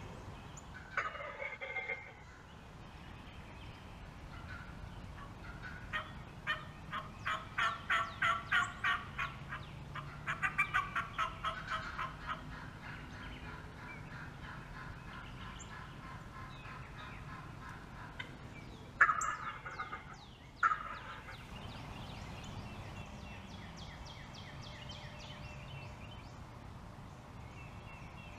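Wild turkey hen cutting: runs of rapid, sharp clucks and yelps, strongest in the first half, the sign of an excited hen. About two-thirds of the way in comes a single louder, sudden turkey call, followed by fainter calling.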